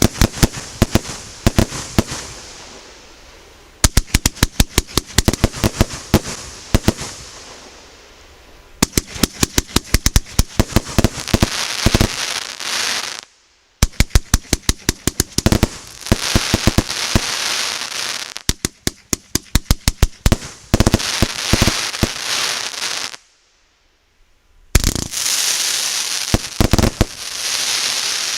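Firework battery ('Parade of Planets' MB152 cake) firing: volleys of rapid sharp shots, each trailing off into a dense hissing crackle. A new volley starts every four to five seconds, with two brief silent breaks.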